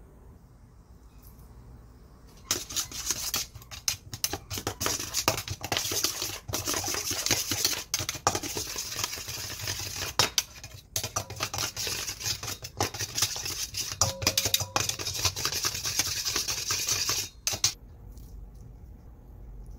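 Metal spoons stirring and scraping a thick chili sauce around a hammered stainless steel mixing bowl, with rapid clinks and scrapes of metal on metal. It starts a couple of seconds in and stops shortly before the end.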